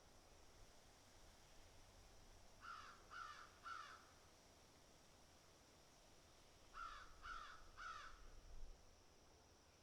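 Crow cawing in two runs of three harsh caws each, the first about three seconds in and the second about seven seconds in.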